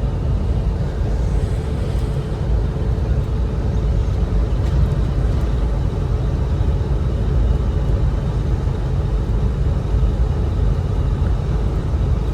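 Steady road and engine noise inside a moving car, a constant low rumble.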